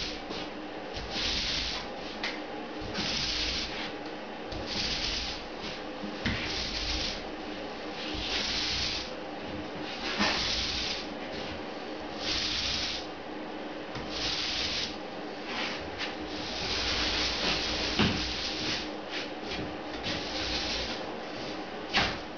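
Paint roller on an extension pole being pushed back and forth across a plaster ceiling: a hissing, rasping sound with each stroke, repeating about every one to two seconds.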